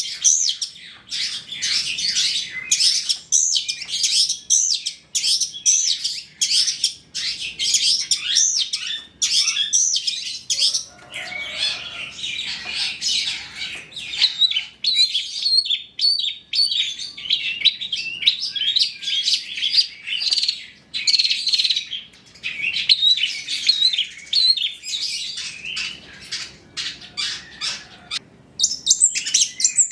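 Long-tailed shrike (cendet) singing a fast, unbroken stream of high chirps, twitters and short whistled phrases, the varied song full of mimicked phrases that keepers call "full isian".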